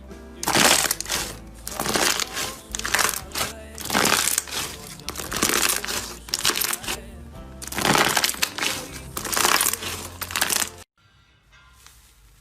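Slime being squeezed and worked by hand, making loud crackling, crunching bursts about once or twice a second over soft background music. The bursts stop abruptly near the end.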